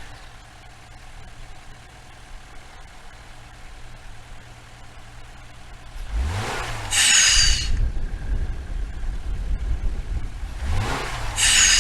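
Subaru Crosstrek's flat-four engine idling, then revved twice, about six and eleven seconds in. After each rev comes a loud hissing whoosh with a falling whistle: the fake turbo's blow-off sound.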